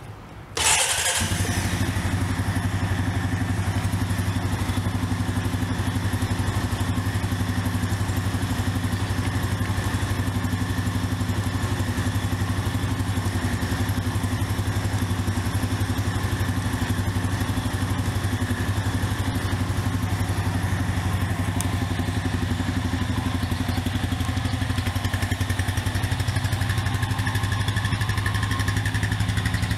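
Honda Rancher 420 ATV's 420 cc single-cylinder engine starts: a brief burst of cranking about half a second in, then it catches and settles into a steady idle.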